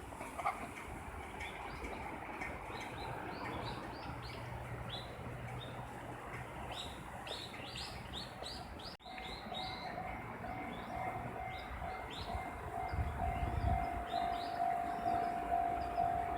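Small birds chirping over a quiet background at a Japanese railway level crossing. About nine seconds in, after a brief dropout, the crossing's warning alarm starts, a steady repeating ringing tone. A low rumble of the approaching train grows near the end.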